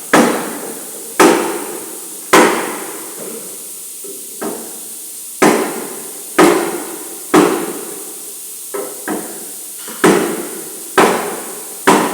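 Hammer blows on sheet metal during panel beating, about one a second, each ringing on briefly, with a pause of a few seconds and two lighter taps in between.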